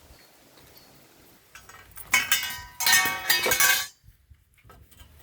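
Milwaukee M18 FUEL cordless band saw cutting through copper pipe: a loud, shrill metallic ringing in two surges lasting about two seconds, which cuts off sharply about four seconds in.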